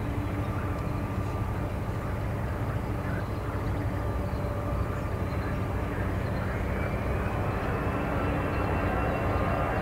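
Jet airliner engines running with a steady rumble; from about seven seconds in a high whine rises in pitch as the sound grows louder.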